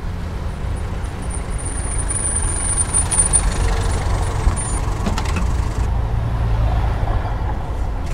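Yellow Ambassador taxi's engine running at idle, a steady low rumble. A thin high whine rides over it for the first few seconds, and a few faint clicks come about five seconds in.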